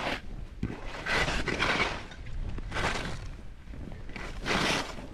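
Skis hissing through snow on successive turns: about four bursts of hiss, roughly a second and a half apart, over a steady low rumble.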